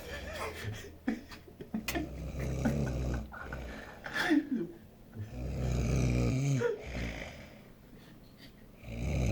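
A sleeping man snoring: long, low, rasping snores repeating about every three and a half seconds, with a few faint clicks between them.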